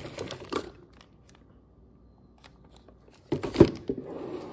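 Clear plastic packaging of a ratcheting wrench set crinkling as a hand handles it, followed about three and a half seconds in by a loud thump.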